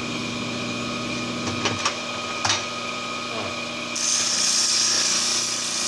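Homemade hand sander built from a 1/4 hp washing-machine motor running steadily with a hum and a few light ticks. About four seconds in, a harsh hissing scrape joins it as the sanding disc is pressed onto a piece of iron.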